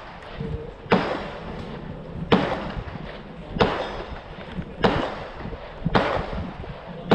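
Five shots from a semi-automatic .300 AAC Blackout AR-15 rifle, fired at a steady pace about one and a quarter seconds apart. Each is a sharp crack with a short ringing tail.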